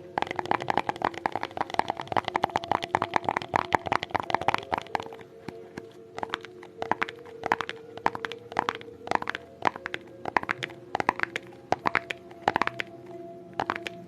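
ASMR tapping: rapid, crisp taps for the first five seconds or so, then slower, scattered taps.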